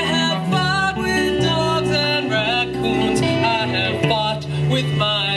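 Live band music: a woman singing over an electric guitar and an electric bass guitar.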